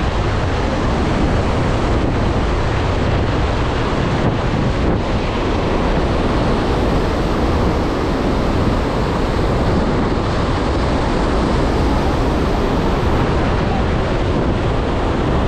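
Iguazu Falls at the Devil's Throat: the loud, steady rush of a huge volume of falling water, with wind noise on the microphone.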